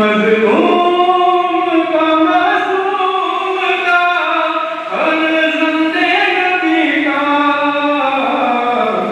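Male voices chanting a noha, a Shia mourning elegy, in unison: a long sung line that steps and glides up and down in pitch, with a short break and a rising restart about five seconds in.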